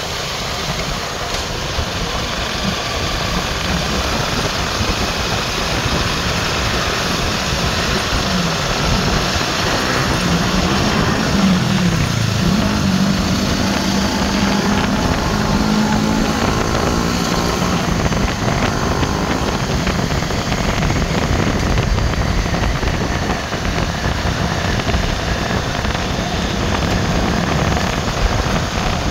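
Riding a motorcycle along a street: steady engine and wind noise, with the engine note falling and rising a few times around the middle as the speed changes.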